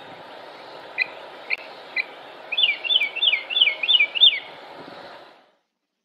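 Northern mockingbird singing: three short separate chips about half a second apart, then a quick run of about six repeated slurred notes, over a steady outdoor background hiss that cuts off near the end.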